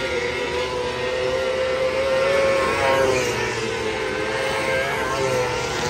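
Several 600cc micro sprint race cars' motorcycle engines running at high revs as they lap a dirt oval. The pitch rises and falls a little, and the sound swells as cars pass, a little over two seconds in and again around three seconds in.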